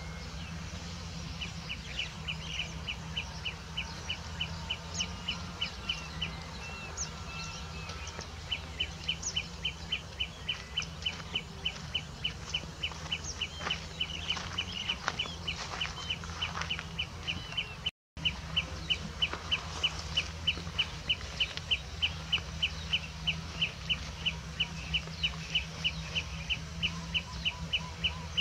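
Field wildlife: a short high chirp repeated rapidly and evenly, about four times a second, in long runs, with a few quick sweeping bird calls above it over a steady low hum. The sound cuts out for a moment about two-thirds of the way through.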